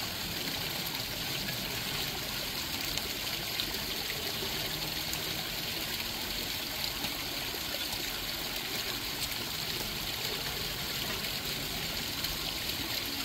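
Steady trickle of running water as peeled cassava roots are washed.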